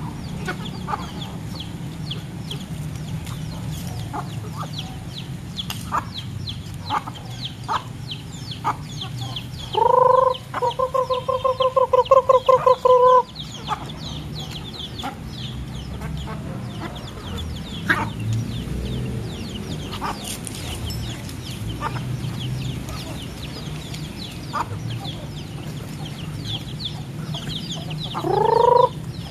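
Chickens calling while feeding, with many short high chick peeps throughout. About ten seconds in, a loud hen call rises and then breaks into a quick run of about a dozen clucks; another rising call comes near the end.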